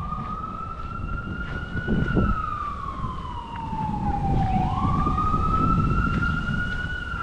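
Emergency vehicle siren wailing in a slow rise and fall, twice: each cycle climbs quickly, then sweeps down over a few seconds. Low, rumbling outdoor background noise sits underneath.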